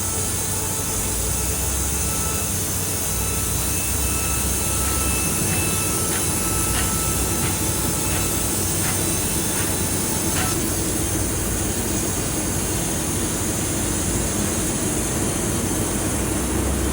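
Sawmill machinery running with a steady mechanical noise and a faint steady whine. A few short clicks or knocks come between about 5 and 10 seconds in.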